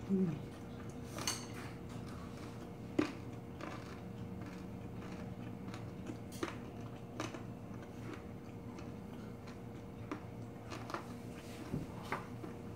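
Close-miked chewing of spicy stir-fried pork cartilage (odolbyeo) with rice, with a few sharp crunching clicks scattered through and light clinks of chopsticks and dishes.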